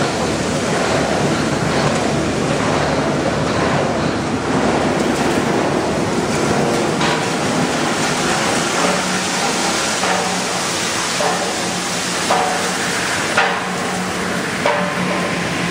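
PET bottle washing and drying line running: water churning in the flake washing tank, then a steady machine hum with intermittent knocks and clatter from about nine seconds in.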